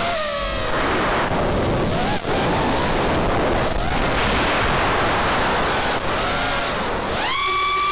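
Racing quadcopter's brushless motors and propellers whining, the pitch rising and falling with the throttle over a steady rush of wind on the onboard microphone. Near the end the whine climbs quickly and holds high.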